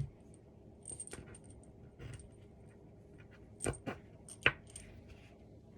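Small metal screws and hardware clinking as they are handled and sorted, a few scattered clicks with a sharper clink about four and a half seconds in.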